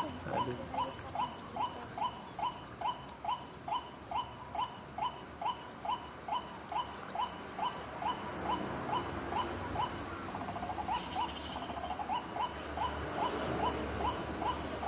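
White-breasted waterhen (ruak-ruak) calling: a long, steady series of short repeated notes at about two and a half a second, the rhythm changing briefly about ten seconds in before settling again.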